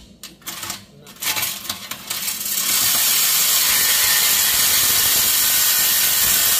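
Cordless reciprocating saw cutting through a steel exhaust pipe to remove the resonator. A few short stop-start strokes in the first two seconds, then steady cutting from about two and a half seconds in.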